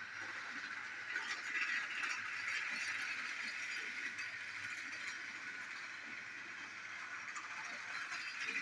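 Motorized toy train running on plastic track: a steady whir from its small motor and gears, with light clicking from the wheels on the track.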